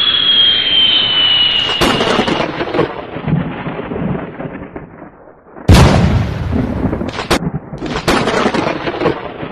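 Thunder-and-lightning sound effects for a subscribe animation: a high whistling tone falling slowly for the first two seconds, then electric crackles and rumbling. The loudest thunder crack comes just under six seconds in, with a few sharper cracks after it.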